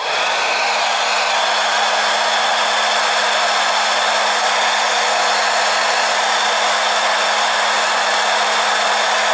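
Heat gun switched on and running steadily, blowing hot air to shrink heat-shrink tubing over a soldered cable joint: an even rush of air over a steady low hum.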